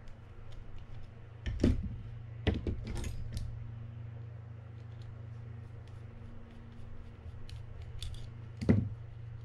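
Light metallic clicks and knocks of a small screwdriver and the metal parts of a Mitchell 302 spinning reel being handled while a screw is undone. There are a few louder knocks: one about one and a half seconds in, two more near the three-second mark, and one near the end, with faint ticks between them.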